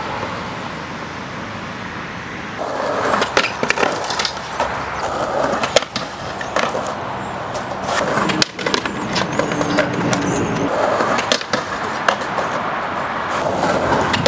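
Skateboard wheels rolling on rough asphalt, starting about two and a half seconds in, with many sharp clacks of the board and trucks hitting the ground.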